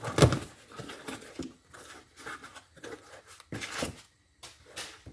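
Cardboard shipping box being opened by hand: tape tearing and cardboard and packing crinkling in irregular bursts, the loudest just after the start.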